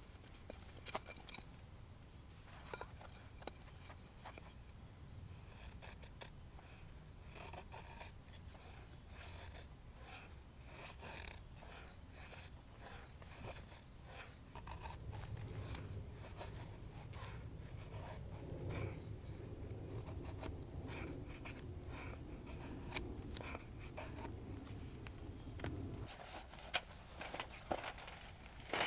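Small handling sounds: scattered light clicks, taps and scrapes of objects being moved about, with a low rumble underneath from about halfway to near the end.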